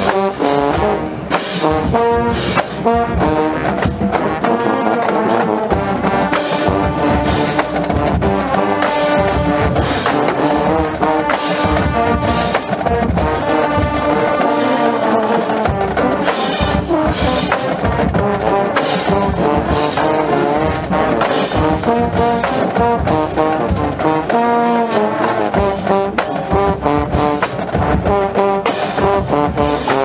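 Marching band playing a loud brass piece, with the trombones close and dominant and sharp hits keeping a steady beat beneath.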